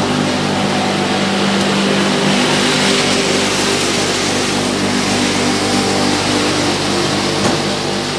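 Rice mill machinery running: a loud, steady drone with a constant hum from the mill's electric motors and milling machines.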